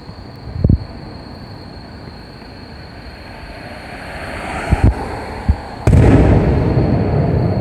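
Fireworks shells bursting: a sharp bang under a second in, a double bang near five seconds and another just after, then a much louder blast with a long rumbling tail near the end.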